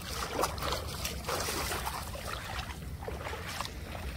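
Water streaming and dripping off a wet cast net as it is hauled out of shallow water, with a few brief splashes, over a steady low rumble.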